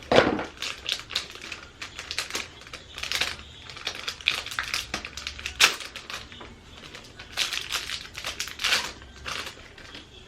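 Makeup brush packaging being handled and opened by hand: a string of irregular crinkles and clicks, with a sharp snap right at the start.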